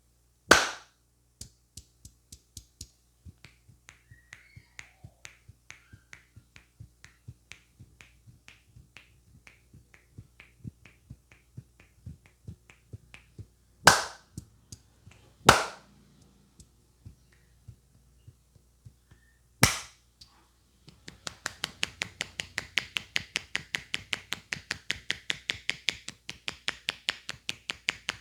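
Percussive head massage by a barber's hands: light, soft taps about twice a second, broken by four loud, sharp hand strikes, then from about 21 s a fast, even run of chopping strikes at about four a second.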